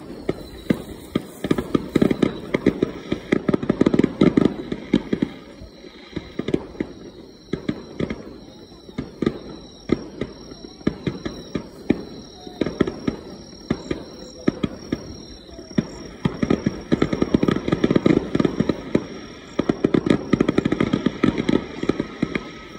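Aerial fireworks bursting in rapid volleys, a dense crackle of many sharp pops. The pops come thickest about two to five seconds in and again near the end, with sparser bangs between.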